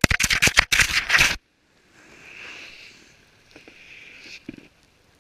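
A GoPro camera tumbling down a snowy slope: a rapid run of hard knocks and crunches as it strikes the snow for about the first second and a half. Then a faint scraping hiss with a few soft knocks as it slides and comes to rest in the snow.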